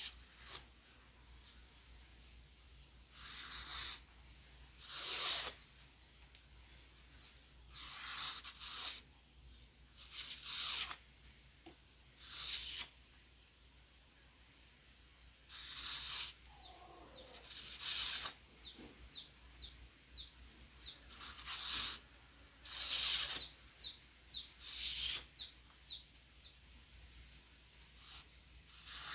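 A knife blade scraping along a thin cane strip in short, irregular strokes a second or two apart, shaving the strip for sieve weaving. A bird chirps in a quick run of short high notes in the second half.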